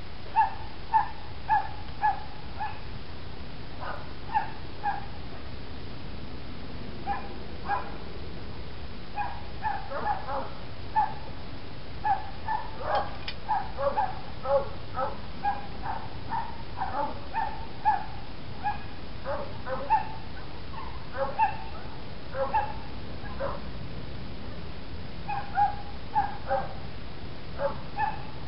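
A dog yapping and barking again and again in short, irregular bursts, over a steady background hiss.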